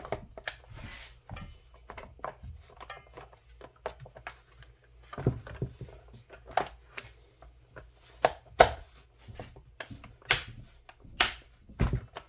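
Irregular clicks and knocks of a Husqvarna 550XPG Mark II chainsaw's top cover being fitted back on and fastened, with the louder knocks in the second half.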